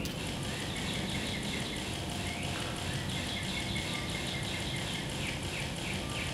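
Birds chirping in quick, repeated short calls over a steady low rumble, starting abruptly with a click.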